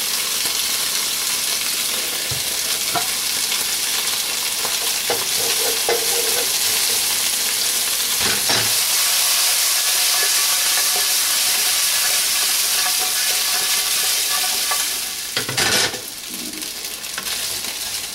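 Chicken wings in soy sauce and brown sugar sizzling in a hot pan with freshly added garlic, with a few short knocks of a utensil stirring them. A louder clatter about three-quarters of the way through, after which the sizzle is quieter.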